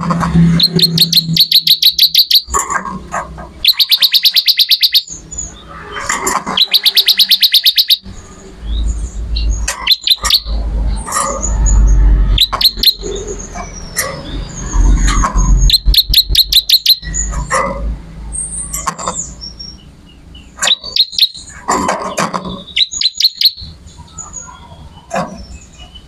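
A ciblek (bar-winged prinia) singing: repeated bursts of very fast, high, buzzy trills about a second long, with short chips and calls between them. A low rumble runs under the middle stretch.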